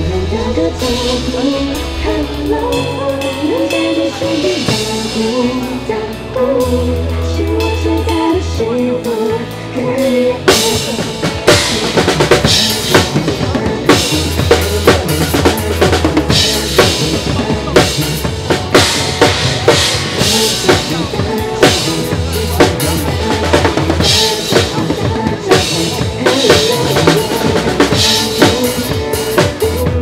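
Drum kit played live over a pop backing track. The first ten seconds are lighter playing under the backing track's melody; from about ten seconds in the drummer plays a busy full-kit groove with hard kick and snare hits and cymbal crashes.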